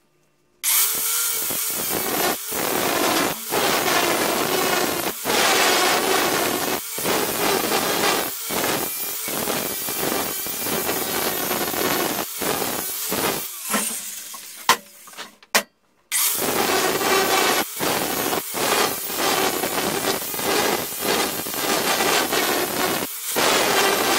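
Angle grinder with an abrasive disc grinding the steel horn of a small anvil: a loud, continuous grinding noise that keeps cutting out for an instant in the recording. About fifteen seconds in it dies away, stops briefly and starts again.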